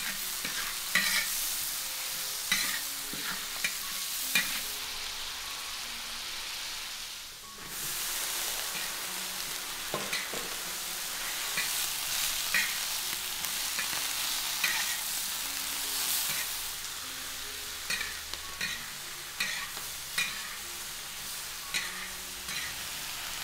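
Food stir-frying in a hot pan: a steady sizzle with a spatula scraping and clacking against the pan in repeated sharp strikes. The sizzle dips briefly about seven seconds in.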